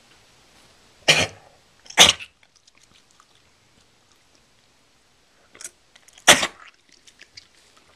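A dog retching: short, forceful hacking heaves, two loud ones close together about a second in, a weaker one and then a third loud one past five and six seconds in. It is the heaving before throwing up, which the owners put down to spicy beef jerky.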